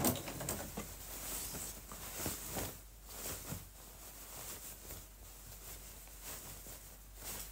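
A Bernette domestic sewing machine's stitching cuts off right at the start; after it come only faint rustles and scattered light taps of fabric and lace being handled.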